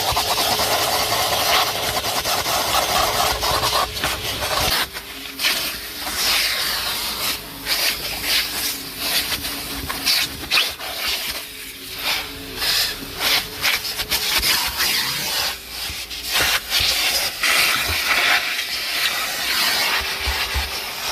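Numatic NTD570 commercial vacuum cleaner running, a steady rushing hiss of suction with a faint motor whine. After about five seconds the hiss turns choppy and uneven as the nozzle is worked over the car's interior, rubbing and briefly sealing and lifting.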